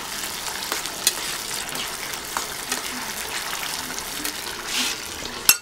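Tomato sauce sizzling and bubbling in a cooking pot while it is stirred slowly, with a few light clicks scattered through it and a sharper one near the end.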